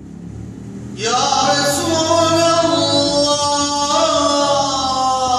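An imam singing a gazel, a solo Turkish devotional vocal, unaccompanied into a handheld microphone. His voice enters about a second in on long held, wavering notes.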